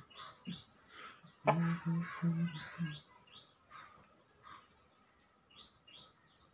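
Small birds chirping again and again in short falling notes. About a second and a half in, four short low notes come in an even row.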